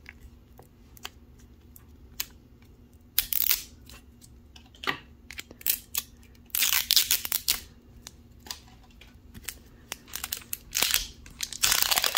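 Paper wrapping of an LOL Surprise ball tearing and crinkling as its zipper tear strip is pulled and the layer peeled away, in several short bursts, the longest about halfway through and near the end. Light clicks of handling fall in between.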